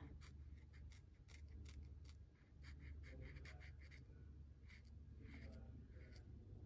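Faint scratching and tapping of a broad-tip acrylic paint marker colouring on laser-cut plywood, in many short irregular strokes over a low steady hum.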